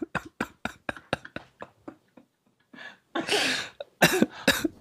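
Men laughing uncontrollably: rapid breathy pulses of laughter that trail off over about two seconds, then a loud breathy gasp and a few coughing bursts near the end.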